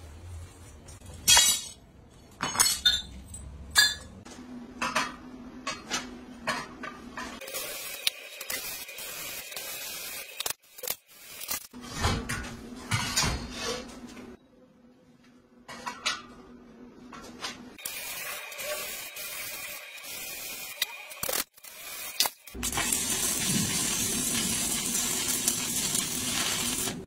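Steel e-bike frame parts clinking and clanking as they are handled on a concrete floor, in several short bursts with sharp strikes in the first few seconds. About four seconds from the end, the steady hiss of electric welding on the frame takes over.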